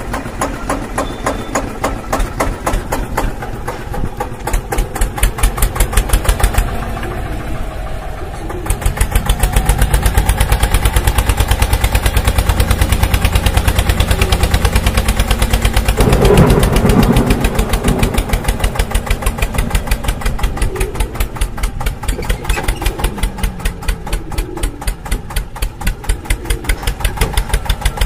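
Tractor engine chugging steadily in quick, even beats, louder and rougher for a couple of seconds around the middle.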